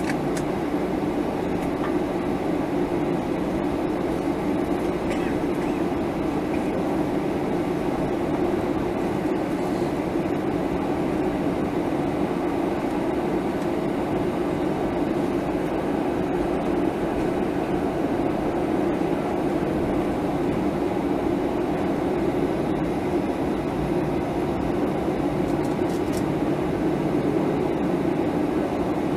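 Steady drone inside the cabin of a Boeing 737-800 taxiing on the ground, its CFM56-7B engines at idle.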